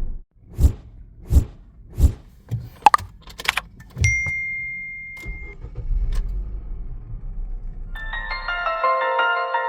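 Three sharp clicks a little under a second apart, then a quick cluster of clicks and a single held high beep. A low rumble follows, and mallet-like background music starts near the end.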